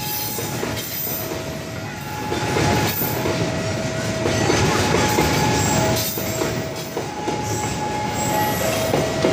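Freight wagons of a cement train rolling past close by, a steady rumble and rail clatter that swells a few seconds in. Behind it a level-crossing warning alarm sounds, stepping between two tones about once a second.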